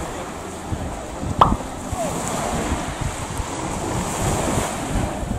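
Sea waves washing in on the shore, with wind buffeting the microphone. A single short, sharp sound stands out about one and a half seconds in.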